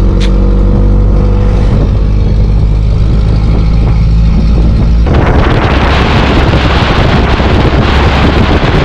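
Pickup truck driving along a road at night, heard from the open back: a steady engine hum, then about five seconds in a loud rush of wind and road noise sets in suddenly.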